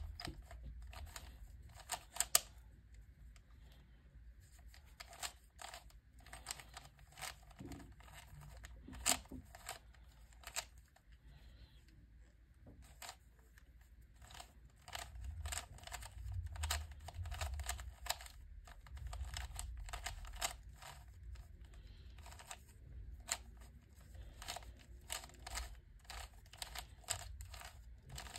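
Plastic Fisher cube (a 3x3x3 shape-mod twisty puzzle) being turned by hand: layers clicking and clacking as they snap round, in irregular flurries with short pauses between them.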